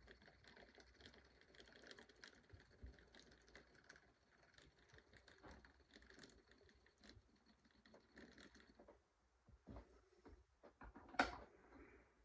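Faint whine of a Graham Farish N gauge locomotive's three-pole motor running at crawl speed, with light ticking of the wheels over the rails; the whine stops about nine seconds in. A single sharp click comes near the end.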